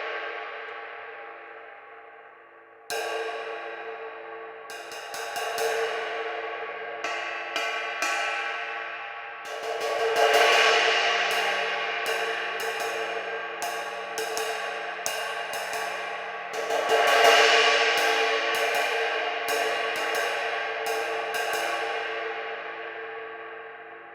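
Zildjian 22-inch Sound Lab prototype ride cymbal. A mallet swell rings out and fades over the first few seconds. Then, about three seconds in, the cymbal is struck over and over, building into a dark, complex wash with two louder swells.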